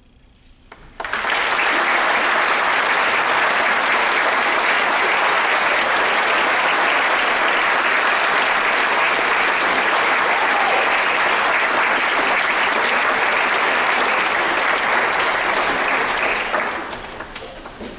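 Concert audience applauding: it breaks out suddenly about a second in, holds steady, then dies away near the end.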